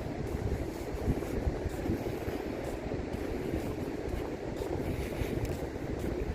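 Steady rumbling of wind and sea on an open beach, with low buffeting on the microphone.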